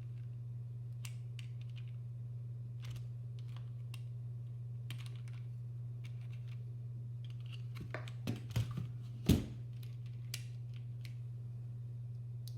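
Scattered light clicks from handling the parts of a mechanical keyboard, with a short run of louder knocks about eight to nine and a half seconds in, over a steady low hum.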